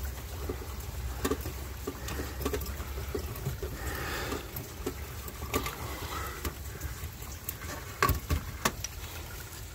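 Scattered light clicks and taps from hands working at an outdoor lantern light fixture to take out a bulb, over a steady low rumble.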